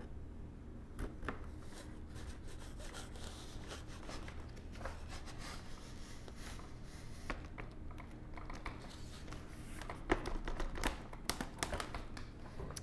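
Faint rubbing and scattered light clicks of a foam RC airplane wing panel being slid onto its joiner tube and pressed against the fuselage, the new parts a tight fit. The clicks come thicker near the end, over a low steady hum.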